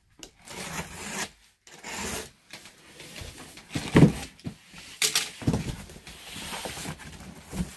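Box cutter slitting the packing tape on a cardboard box, with scraping and rubbing of cardboard as the flaps are worked open. The sharpest knock comes about four seconds in.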